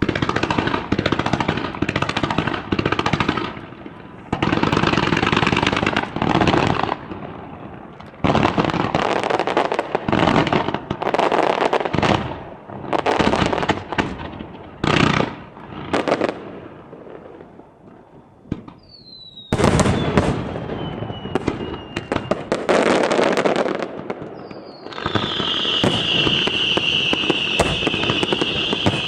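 Fireworks display: a rapid series of bursts, each a one- to two-second wash of dense crackling, starting abruptly. Past the middle a whistling shell gives a falling whistle, and near the end a long steady whistle sounds over more crackling.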